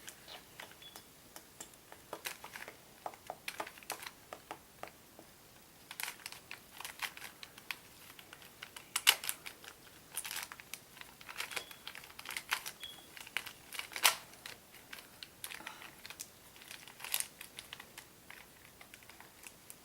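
Plastic Rubik's Cube being turned by hand: irregular runs of sharp clicks as its layers rotate, with the loudest snaps about 9 and 14 seconds in.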